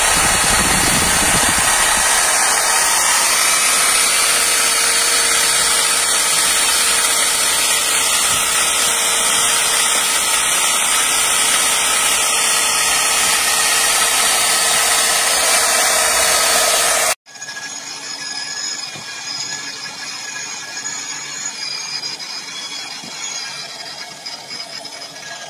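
Handheld plastic extrusion welder running while it lays a weld bead on an HDPE liner: a steady whine from its drive motor and hot-air blower. About two-thirds of the way through, the sound cuts off abruptly and a quieter steady hum from the same kind of welder takes over.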